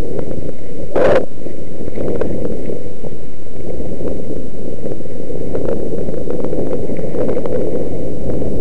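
Heavy wind buffeting the camera's microphone during a downhill mountain bike run, with many short clicks and rattles from the bike over rough ground. One loud sharp knock about a second in.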